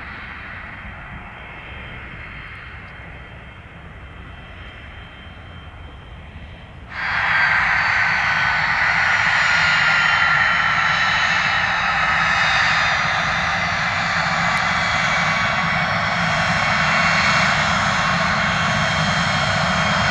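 Twin turbofan engines of a Pilatus PC-24 business jet whining at taxi power. About seven seconds in, the sound jumps abruptly much louder and closer, with several high tones, one gliding slowly down.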